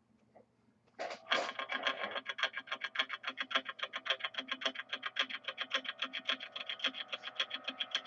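Music starts about a second in, a fast, even pulse of about eight beats a second over sustained tones, after a faint hum.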